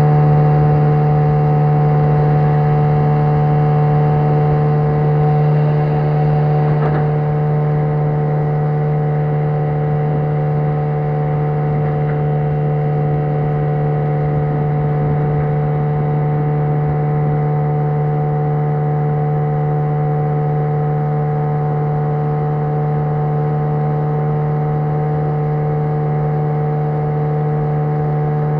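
Small outboard motor running steadily at cruising speed while the boat is under way, a constant droning hum that holds one pitch throughout.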